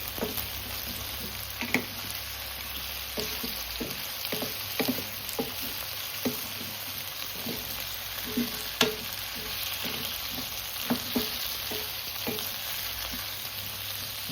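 Chicken feet and vegetables sizzling in oil in a nonstick pan while being stirred: a steady frying hiss with irregular clacks of the utensil against the pan, one louder knock about nine seconds in.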